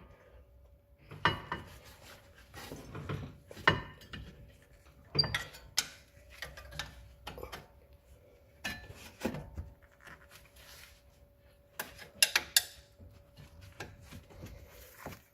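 Screwdriver prying between the brake pads and disc of a front brake caliper to push the caliper pistons back: irregular metallic scrapes and clicks, a few louder knocks among them, with pauses between.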